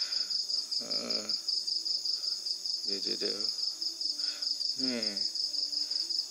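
An insect trilling steadily in the background, one high note pulsing very fast and evenly without a break. Short bits of a man's speech come in over it.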